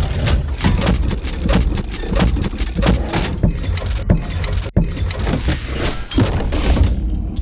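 Designed steampunk machinery sound effects: a heavy low mechanical rumble under dense rattling and clanking. There is a sudden cut to another machine loop about two-thirds of the way through.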